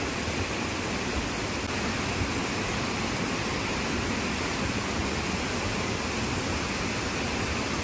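Heavy monsoon rain falling, a steady even hiss.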